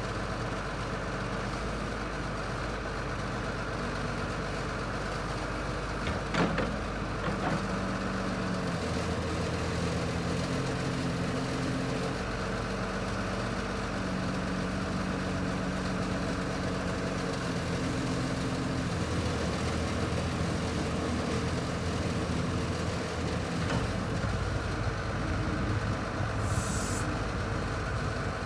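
Volvo EC240LC excavator's Cummins C8.3 six-cylinder diesel running, its engine note shifting several times. Two sharp knocks about six and seven seconds in, and a brief high hiss near the end.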